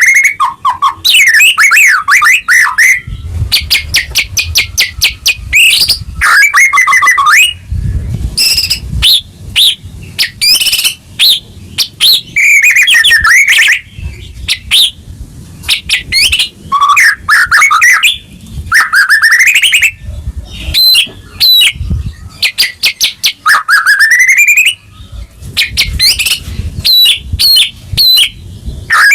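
White-rumped shama (murai batu) in full song: loud, varied phrases of rapid repeated rattling notes and sweeping whistles that rise and fall, one after another with only brief pauses.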